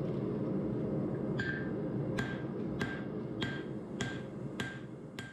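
Hand hammer striking a red-hot pattern-welded O1 tool steel knife blade on an anvil while forging in the bevel. About seven blows come roughly two-thirds of a second apart, starting about a second and a half in, each with a short metallic ring.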